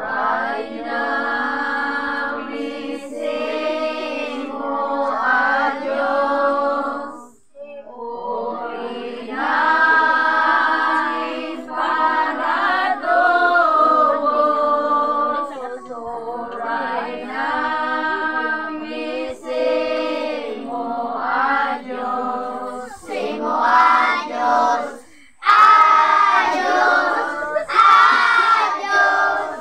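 A group of children and girls singing a devotional song unaccompanied, in long held phrases with short breaks between them.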